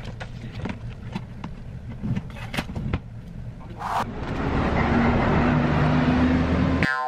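Street traffic: a motor vehicle passes close about four seconds in, its engine and tyre noise growing louder over the background rumble and scattered clicks, then cut off abruptly just before the end.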